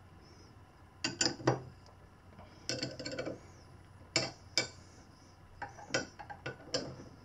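Metal wrenches clinking and clanking against each other and the bolts as they are repositioned: irregular sharp clinks and knocks, starting about a second in and coming in small clusters.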